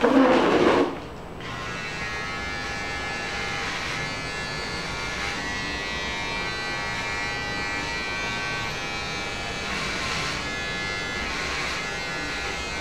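A short loud burst of sound in the first second, then electric hair clippers buzzing steadily at one even pitch while cutting a child's hair.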